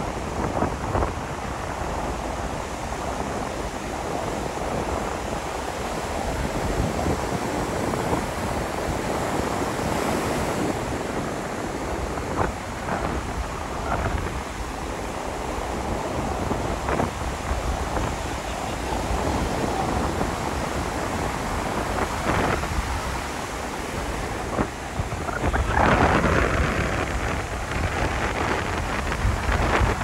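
Surf washing onto the beach, with wind buffeting the microphone. The sound is a steady rush that swells louder a few seconds before the end.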